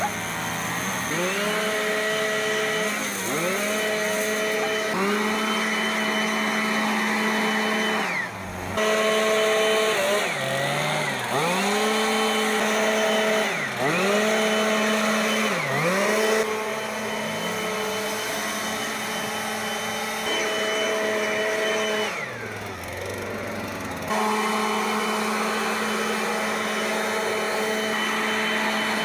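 Backpack leaf blower engine, revved up and eased off again and again in the first half, its pitch rising to a steady high note each time, then held at a steady run through the last few seconds.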